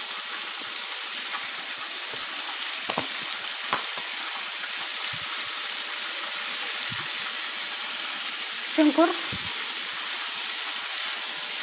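Sliced mushrooms, green chillies and coriander leaves sizzling steadily in hot olive oil in a frying pan while being stirred with a wooden spatula, with a couple of light knocks about three seconds in.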